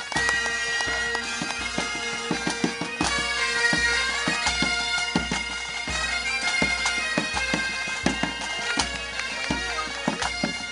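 Breton bagad pipe band playing: bagpipes sounding a tune over a steady drone, with drum beats keeping an even pulse.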